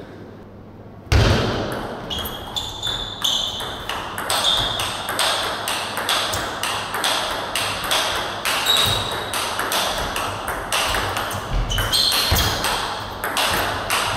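Table tennis rally: the celluloid-type ball clicking back and forth off rackets and table in quick hard knocks with a short pinging ring, echoing in a large hall. It starts suddenly about a second in, with a few deep thuds near the end.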